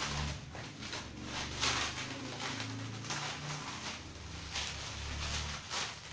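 Clear plastic wrapping on a large parcel crinkling and rustling in irregular bursts as the parcel is swung and shaken about.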